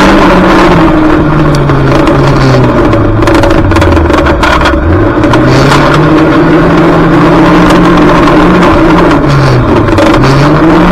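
Junior banger's engine racing, heard from inside the car: the revs fall away around the middle, climb sharply about five seconds in and hold steady, then dip and rise again near the end, over constant rattling and knocking.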